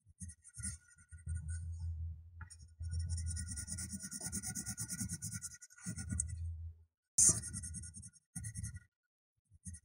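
A coloring pen scribbling back and forth on paper in quick, even strokes, filling in stripes with dark gray, with short pauses between runs. There is a single sharp tap about seven seconds in.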